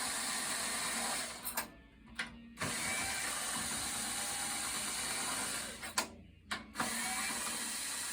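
Floor tom shell being turned on a flat surface to check its bearing edge for level, the edge scraping steadily. The scraping stops twice for about a second, with sharp knocks as the shell is set down and picked up again.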